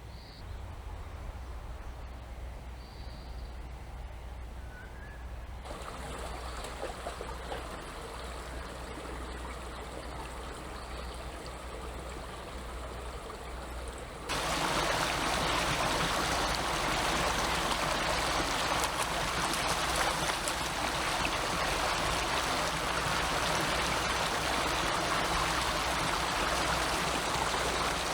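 Forest stream running over rocks, a steady rush of water. It gets suddenly louder about six seconds in, then much louder and fuller about halfway through.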